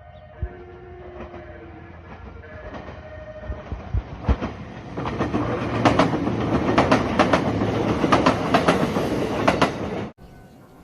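Nagano Electric Railway express train approaching and passing close by, a growing rumble with its wheels clacking over rail joints, loudest in the second half. A few faint steady tones sound at first, and the sound cuts off abruptly shortly before the end.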